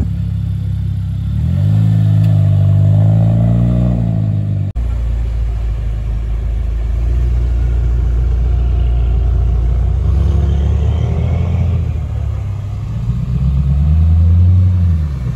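Car engines and exhausts rumbling as modified cars roll slowly past at low speed. The engine note rises and falls as a car pulls through, about two seconds in and again near the end, with a steadier low rumble between. The sound cuts out abruptly for an instant about five seconds in.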